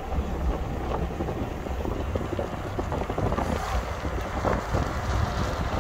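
Steady low rumbling noise.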